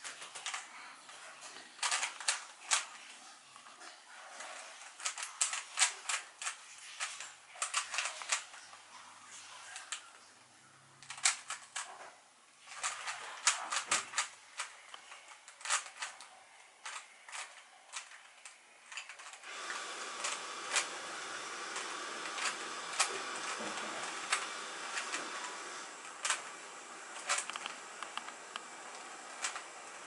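3x3 Rubik's cube clicking as its plastic layers are turned one-handed: quick irregular runs of sharp clicks with short pauses between them. About two-thirds of the way through, a steady hiss starts and continues under the clicks.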